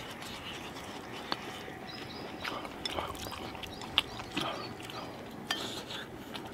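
People eating hotpot: close chewing and slurping, with a handful of scattered light clicks and taps.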